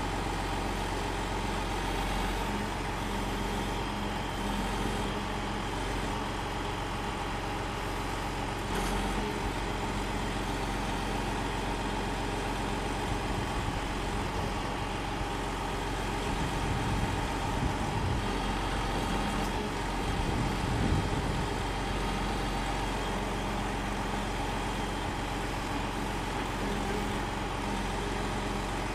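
Log truck's diesel engine running steadily while it powers the truck-mounted knuckleboom loader's hydraulics to lift logs off the bed. The sound swells louder a couple of times about halfway through.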